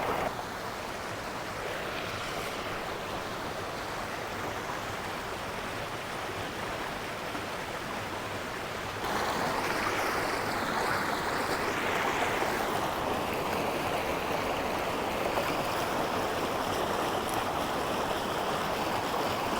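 River water rushing steadily, the river running high and heavy after a hurricane. The rush gets louder about halfway through.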